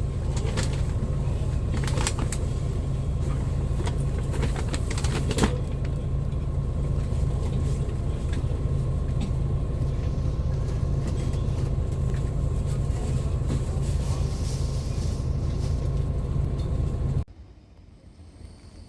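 Steady low rumble of a moving road vehicle, with several sharp clicks in the first five or six seconds. It starts and stops abruptly.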